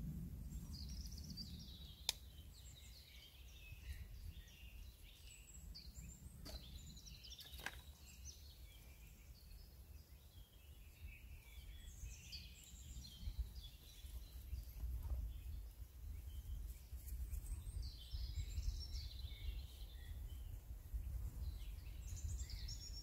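Small birds singing and chirping over a low, uneven rumble, with a few faint clicks.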